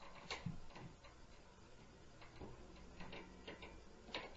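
Faint, irregular knocks and clicks, with a couple of dull low thumps about half a second in and halfway through: footfalls and stomping from the apartment upstairs, heard through the ceiling.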